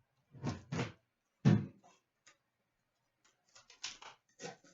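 Hands opening a sealed trading-card box and its pack: a few sharp clicks and rustles of cardboard and wrapper, with one heavier knock about a second and a half in, then a quick run of small clicks and crinkles near the end.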